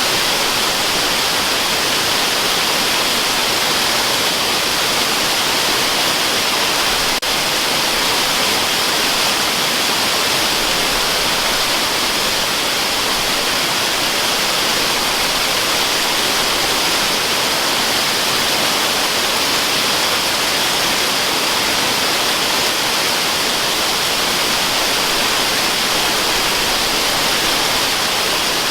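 Waterfall rushing steadily: a dense, even, hissing roar of falling water with no change over the whole stretch.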